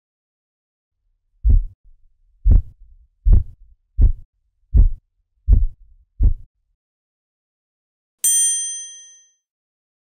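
Korotkoff sounds heard through a stethoscope as a manual blood pressure cuff deflates: seven low taps about three-quarters of a second apart, the first marking the systolic pressure of 88 mm Hg and the last the diastolic pressure of 58 mm Hg. About eight seconds in, a single bright chime rings and fades.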